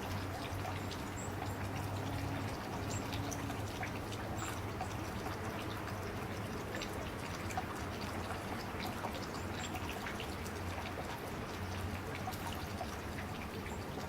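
Water trickling and dripping at a bathing spot, with many small splashes and brief, high bird chirps scattered through it. A low steady hum runs underneath.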